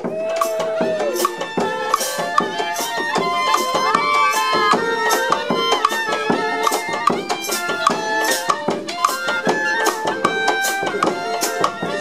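Several clarinets playing a tune together in harmony, over steady percussion beats from a street band.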